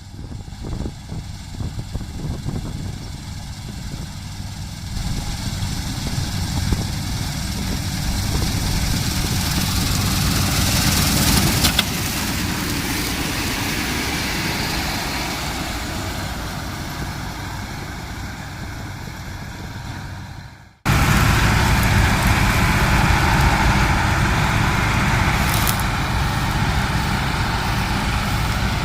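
Sparry 8060 combine harvester running while cutting wheat: a steady din of engine and machinery. It grows louder over the first dozen seconds and then eases off slowly. About two-thirds of the way in it breaks off abruptly and comes back louder and steady.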